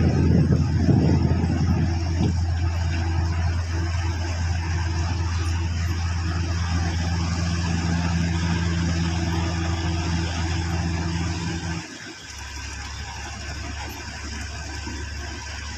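Heavy construction machinery's diesel engine running with a steady low drone, which drops to a quieter, lower rumble about twelve seconds in.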